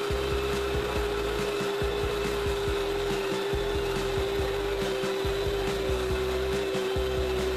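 Countertop blender running steadily with a constant motor whine, emulsifying egg yolks and oil into mayonnaise.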